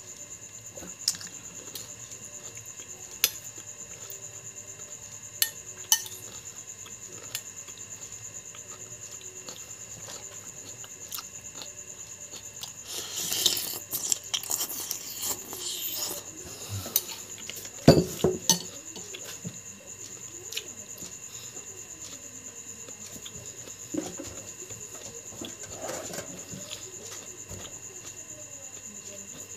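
Metal spoon clinking against a bowl every second or two while eating iced fruit dessert, with a stretch of slurping and chewing about halfway through and a louder knock a few seconds later.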